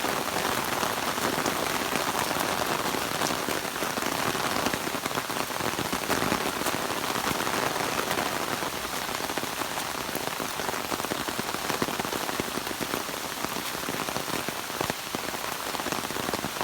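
Heavy rain falling steadily, a dense patter of drops close around the microphone.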